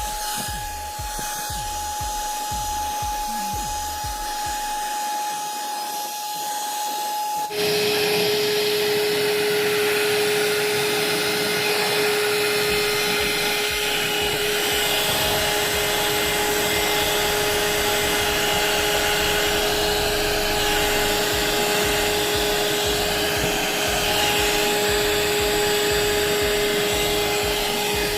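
Small handheld car vacuum cleaner running with a steady high motor whine. About a quarter of the way in, the sound changes abruptly to a louder, lower whine with much more rushing air, which then runs steadily.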